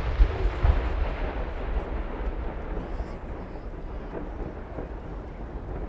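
Rolling rumble and echo of a large aerial firework shell's burst, slowly fading, with a few faint pops about half a second and again around four seconds in.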